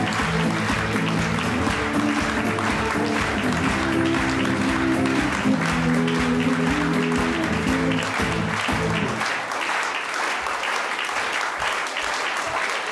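Audience applauding over a live band playing with guitars; the music stops about nine seconds in and the clapping goes on alone.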